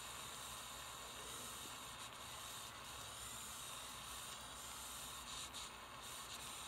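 Small jeweler's soldering torch burning with a steady, quiet hiss while its flame heats a gold piece to flow hard solder.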